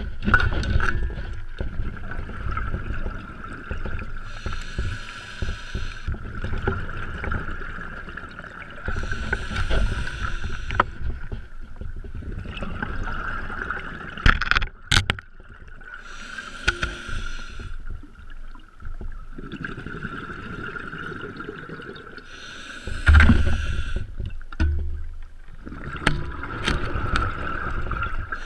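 Scuba diver breathing underwater on an open-circuit regulator: a bubbly exhalation burst about every six seconds, with quieter inhalations between. A steady high hum runs throughout, and a few sharp knocks come about halfway through.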